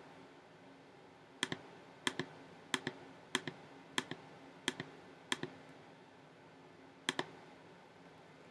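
Clicking of computer keyboard keys, eight evenly paced presses, each a sharp double click, with a pause before the last one.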